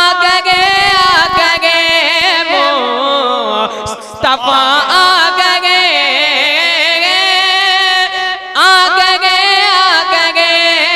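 A boy's voice singing a naat into a microphone: long, ornamented held notes that waver in pitch, broken by short breaths about four and eight and a half seconds in.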